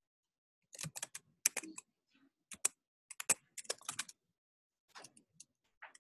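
Computer keyboard being typed: quick runs of key clicks from about a second in until about four seconds, then a few fainter taps around five seconds.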